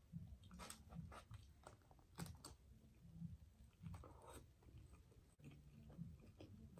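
Faint chewing of a fried chicken sandwich dipped in ranch: a bite near the start, then wet mouth clicks and soft crunches at an uneven pace of roughly two a second.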